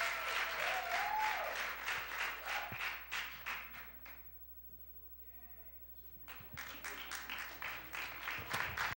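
Audience clapping, with a few whoops in the first second or so. The clapping dies away about four seconds in and starts up again about two seconds later.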